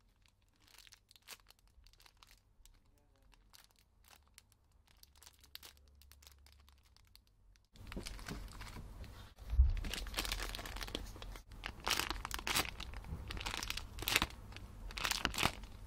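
Clear plastic packaging crinkling and crackling as a packaged foam squishy toy is squeezed and handled. Faint and sparse for the first half, then louder and busier from about halfway through.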